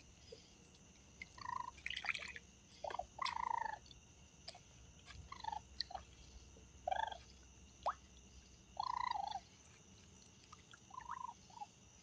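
Raccoons wading and pawing in the shallow water of a bird bath: short, irregular splashes and drips, a few a second at the busiest, with the odd sharp click. A steady chirring of insects runs behind.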